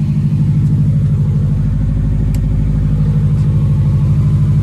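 Turbocharged Subaru Forester's flat-four boxer engine running steadily, a low even hum that swells slightly in the first second and then holds.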